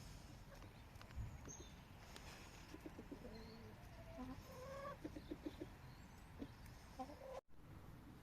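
Chickens clucking softly, with a quick run of short clucks in the middle and a thump about a second in.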